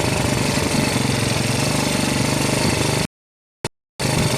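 An engine running steadily with a fast, even pulsing. About three seconds in the sound cuts out completely for nearly a second, with one short blip, then the engine returns.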